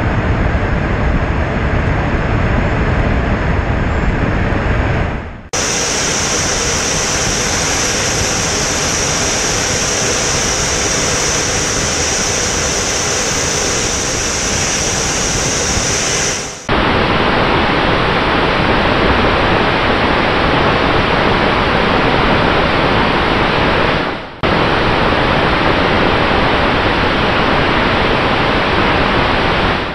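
Steady rushing airflow noise on a microphone aboard the BAE Systems MAGMA unmanned aircraft in flight. The sound dips briefly and changes character three times, about five, seventeen and twenty-four seconds in, with a stronger high hiss between the first two changes.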